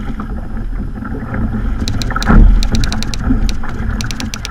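Water sloshing and splashing against a kayak, with wind on the microphone and a louder splash about two seconds in. A quick run of sharp clicks sounds through the middle.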